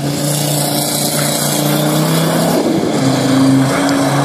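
Audi 2.5 TDI diesel engine held at high revs while the all-wheel-drive car spins donuts on snow, with a steady hiss of spinning tyres and thrown snow. The engine note sags briefly a little past halfway and then picks up again.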